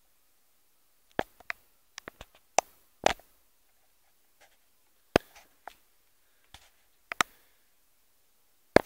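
A dozen or so short, sharp clicks and taps at uneven intervals, with silence between them and no engine running.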